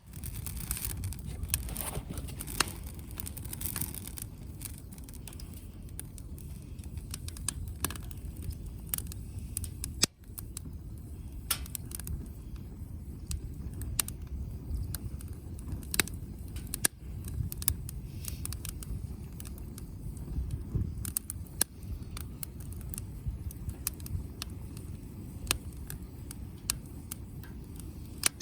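Campfire wood burning, crackling with irregular sharp pops and snaps over a steady low rumble.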